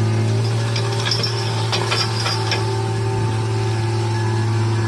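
Diesel engine of a large crawler dragline excavator running with a steady drone. A run of rattling clicks comes about half a second to two and a half seconds in.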